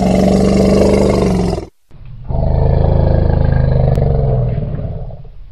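Two long, deep animal roars, the second a little lower in pitch and fading away near the end.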